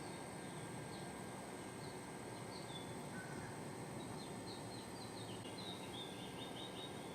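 Outdoor ambience: a steady hiss with faint, high chirping calls, scattered at first and then in a quick run through the second half.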